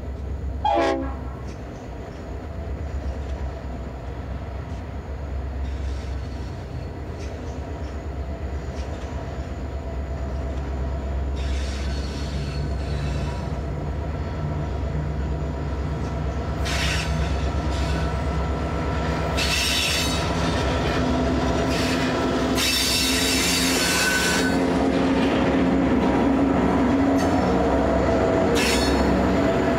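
Three G class diesel-electric locomotives pulling a loaded grain train away from a loop, their engines rumbling steadily and growing louder as they draw near. Wheel squeal comes in several bursts from about the middle on, and a brief falling squeal is heard about a second in.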